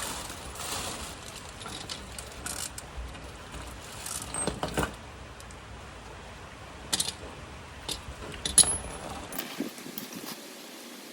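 Metal tools and parts clinking and knocking at irregular intervals, the loudest knock about three-quarters of the way through, over a low steady hum that stops near the end.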